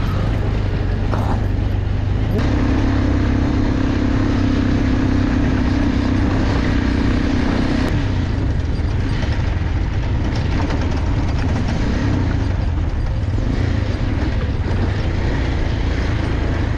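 Motorcycle being ridden along a rough gravel road: steady engine and low road-and-wind rumble. A steady hum joins in from about two to eight seconds in.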